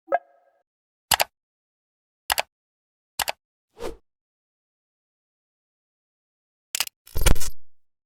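A run of separate stock sound effects with dead silence between them: a brief pitched plop at the start, four short sharp clicks or snaps spaced about a second apart, then near the end a louder noisy burst with a low rumble that fades away.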